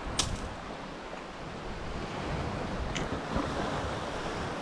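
Surf washing on a pebbly shore, with wind on the microphone. A sharp click comes just after the start and a fainter one about three seconds in.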